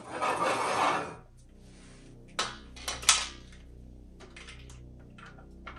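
Handling noise as a power adapter is connected to an animatronic prop's control box: a rustle in the first second, then a few sharp plastic and metal clicks about two and a half to three seconds in, with fainter ticks after.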